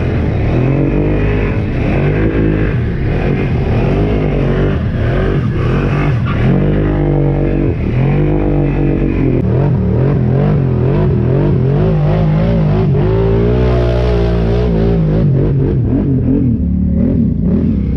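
ATV engine revving up and down again and again under load, its pitch climbing and dropping every second or two.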